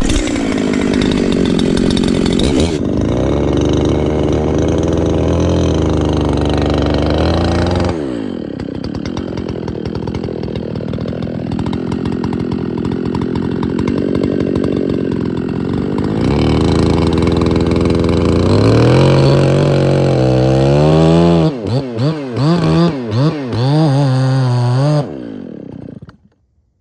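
Two-stroke chainsaw with a ported muffler running at full throttle while cutting into an ash tree. It eases off and pulls down for several seconds in the middle. Near the end it is revved in several quick blips and then stops.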